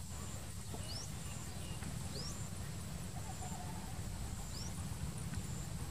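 Three short, high, upward-sliding chirps from a small bird, about a second in, at two seconds and near four and a half seconds, over a steady low rumble and a faint high whine that breaks off at intervals.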